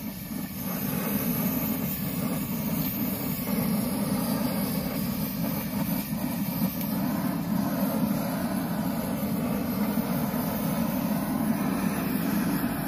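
Long-wand searing torch burning steadily, its flame held on a steak to sear the crust: an unbroken rushing flame noise.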